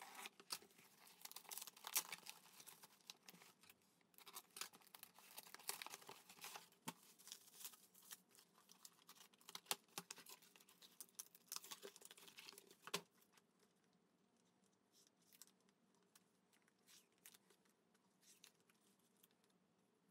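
Tape and mailer packaging being torn and crinkled open by hand: irregular quick rips and rustles with sharp snaps. After about thirteen seconds it drops to faint, sparse rustling.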